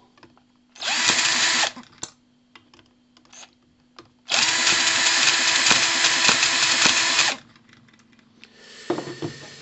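Cordless drill spinning the flywheel of a Microcosm H73 hit-and-miss model petrol engine to turn it over: a short run about a second in, then a longer run of about three seconds. The engine fails to start, its needle valve not yet set right.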